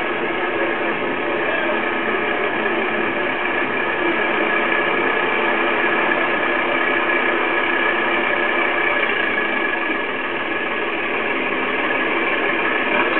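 Farm tractor engine running steadily under a haze of hiss, several steady tones holding the whole time, heard through a poor, muffled VHS soundtrack.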